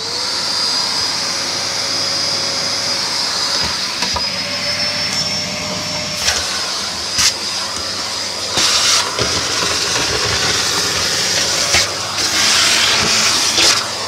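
Kärcher T 10/1 Professional commercial vacuum cleaner running steadily: a rush of air under a thin high motor whine that creeps up slightly in pitch in the first few seconds. Brief knocks and crackles come now and then as the nozzle works over the ash-covered hearth.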